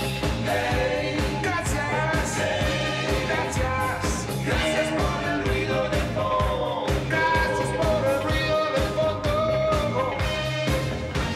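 Pop-rock song with a male lead singer over a full band: drums, electric guitar and saxophones keeping a steady beat.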